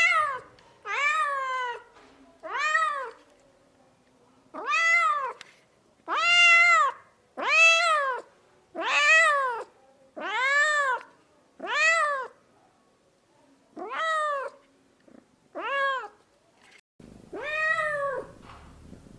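Domestic cat meowing repeatedly, about a dozen separate meows, each rising then falling in pitch and lasting under a second, with short pauses between them. A faint background hiss comes in near the end.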